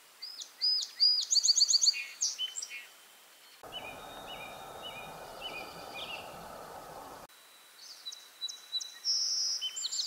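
Songbirds singing: quick high trills and chirps, and a run of lower repeated whistled notes. In the middle a steady rushing hiss starts and stops abruptly for a few seconds.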